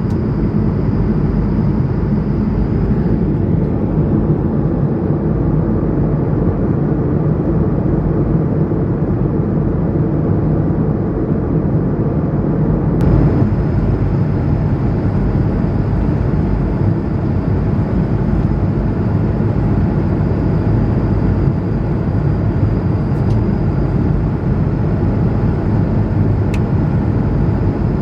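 Steady airliner cabin noise inside an Airbus A220-100: a low, even rumble of its Pratt & Whitney geared turbofan engines and the airflow, with a faint high whine over it. A single light click comes about halfway through.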